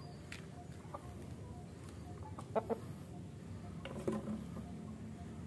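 Chickens clucking: two quick clucks about two and a half seconds in and a third about a second later, over a steady low background rumble.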